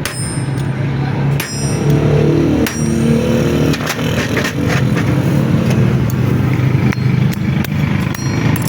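A motor or engine running steadily, with scattered sharp clicks and knocks over it.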